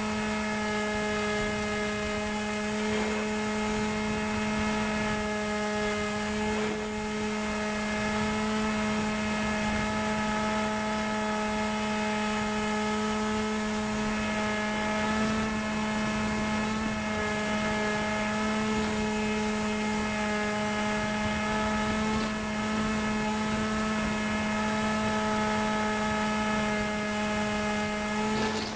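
Wild Hawk RC airplane's motor and propeller running at a steady throttle in flight: a constant hum with a high whine above it, heard close up from a camera mounted on the plane.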